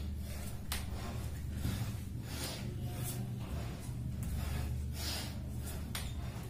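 A person breathing hard through nose and mouth during a bodyweight floor exercise, with short forceful breaths about one or two a second. A low steady hum runs underneath.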